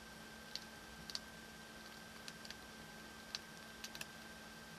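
Faint, irregular small clicks of tiny phone screws and a jeweler's Phillips screwdriver being handled, about seven light ticks.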